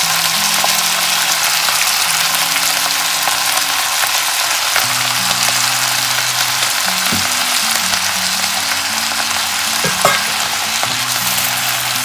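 Boiled noodles sizzling in hot oil as they are stir-fried with vegetables in a non-stick wok, a spatula tossing them and knocking on the pan twice, about seven and ten seconds in.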